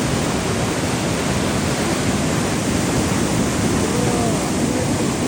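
Steady rush of fast water running over rock, a loud even roar of a creek falls.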